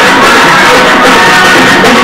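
Punjabi bhangra dance music playing loudly and continuously.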